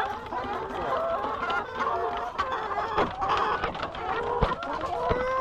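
A flock of laying hens clucking, with many short overlapping calls and a few sharp clicks and knocks among them.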